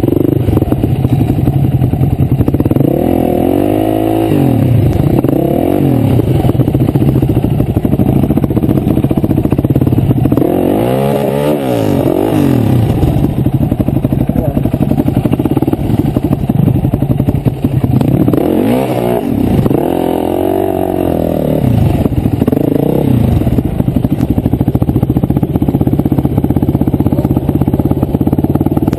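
Off-road dirt bike engine running close by, revving up and down several times in quick swells as it works through rough ground.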